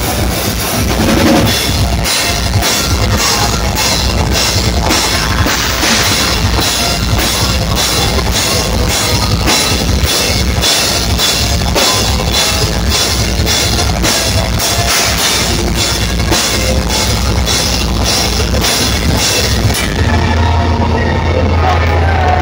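Deathcore band playing live and loud: heavily distorted guitars over a drum kit hammering fast, even hits with crashing cymbals. About two seconds before the end the drums and cymbals stop, leaving a low held note ringing.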